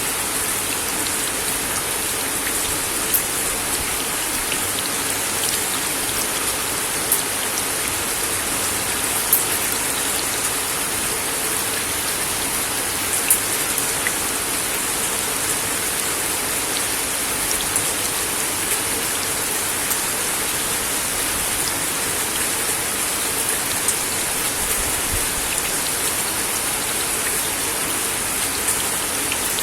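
Steady rain falling on a wooden deck: a dense, even hiss of rain with scattered louder individual drops ticking on the boards.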